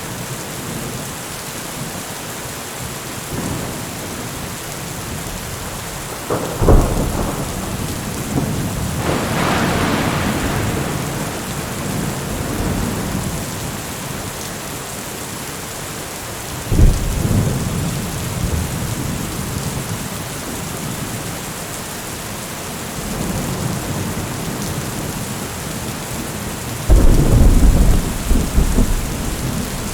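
Steady rain with thunder: a sharp clap about a quarter of the way in, then a long rumble; another sharp clap just past halfway followed by rumbling; and the loudest, longest rumble of thunder near the end.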